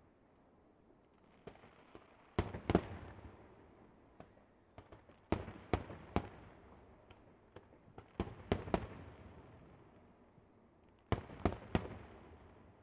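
Fireworks display: shells bursting in quick groups of two or three sharp bangs, about every three seconds, each group followed by a fading rumble and echo.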